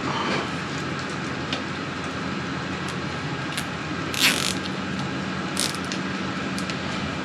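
Hand work on motorcycle wiring: a few light clicks and a short rasp about four seconds in, with a smaller one shortly after, over a steady hum.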